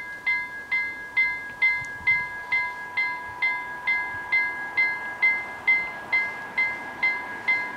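Level-crossing warning bells ringing, struck about twice a second with a ringing tone that carries on between strokes: the crossing has been activated for an approaching train.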